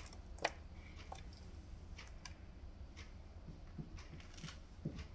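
Cockatiels pecking and nibbling at a treat: faint, scattered small beak clicks and ticks, irregularly spaced, the sharpest about half a second in.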